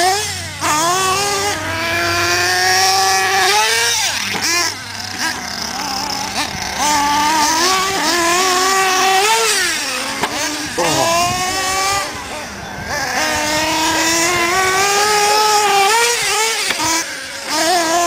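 Nitro RC trucks' small two-stroke glow engines running hard, their high-pitched whine rising and falling over and over as the throttle is worked, with brief dips where an engine drops toward idle.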